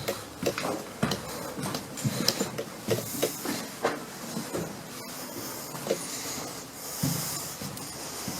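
Footsteps and small irregular knocks, about two or three a second, over a steady hiss.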